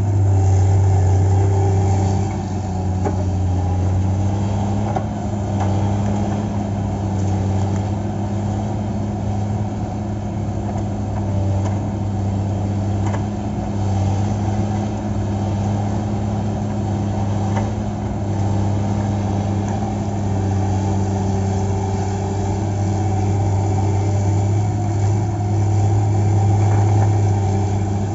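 Heavy machine's diesel engine running steadily at a constant speed while loading logs, its pitch dropping a little about two seconds in, with a few faint knocks.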